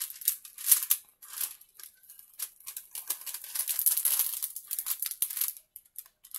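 Clear plastic cover film on a poured-glue diamond painting canvas crinkling in irregular rustles as fingers lift and smooth it. There is a sharp crackle just under a second in and a longer run of crinkling around the middle.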